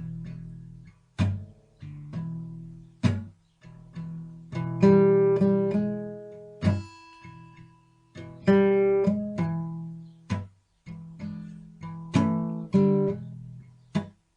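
Acoustic guitar music, strummed and picked chords with a steady rhythm.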